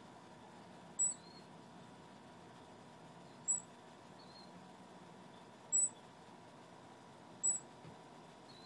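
Four short, high-pitched chirps from a small animal, evenly repeated about every two seconds, over a faint steady background.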